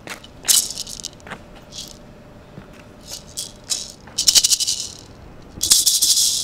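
Gourd maracas shaken in short separate bursts, then shaken continuously near the end.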